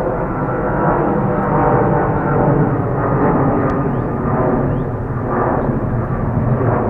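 Jet airliner's engines running loud and steady at close range, a dense rumble with steady engine tones running through it.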